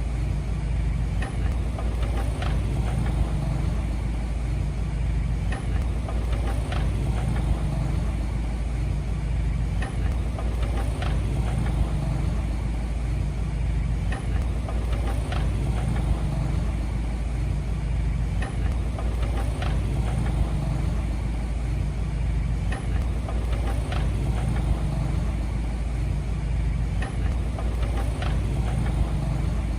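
Heavy earthmoving machine's diesel engine running steadily, with faint sharp clicks repeating about every second and a half.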